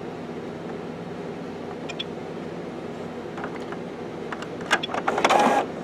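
A steady low hum. About four and a half seconds in, an HP OfficeJet Pro 6978 printer starts a copy job with a run of clicks and then a short burst of mechanical whirring.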